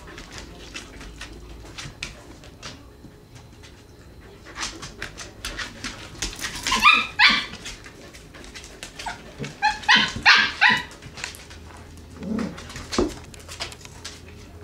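Six-week-old Samoyed puppies yipping and barking in play, in two quick runs of high-pitched yips about seven and ten seconds in.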